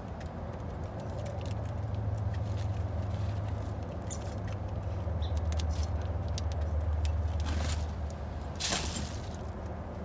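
Low engine rumble that swells over several seconds and then eases off, with faint scattered clicks and a brief rushing hiss near the end.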